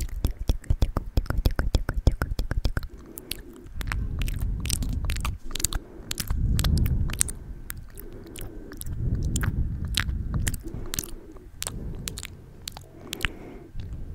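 Wet mouth sounds close to the microphone: quick clicks and smacks, densest in the first few seconds, then scattered over muffled rubbing of hands cupped around the microphone.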